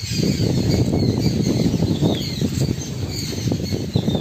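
Wind buffeting the phone's microphone in an uneven, gusty rumble, with small birds chirping faintly in the background.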